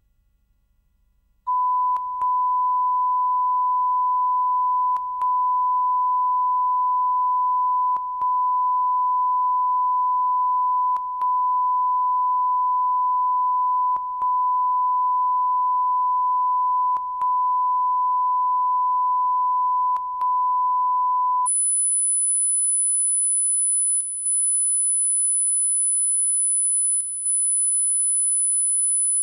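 Line-up test tones: a steady 1 kHz reference tone, broken by a short gap about every three seconds, switches about twenty seconds in to a steady, much higher-pitched tone. These are the alignment tones at the head of a programme tape, used for setting levels before the programme starts.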